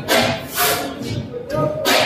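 1923 Crossley OE228 diesel engine running slowly on its first start, its exhaust beating heavily and slightly unevenly about twice a second.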